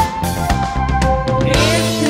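Pop song backing music with sustained chords and a steady drum beat; singing voices come in near the end.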